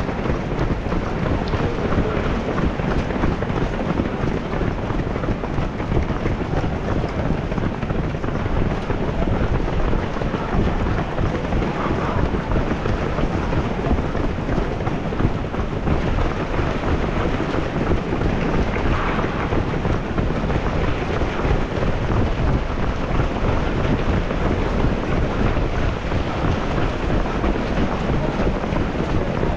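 Strong wind buffeting the microphone, a steady, dense noise without pauses.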